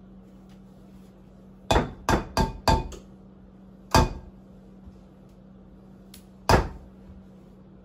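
Sharp knocks of a utensil tapped against the rim of a mixing bowl to knock off creamed batter: a quick run of four, then two single knocks.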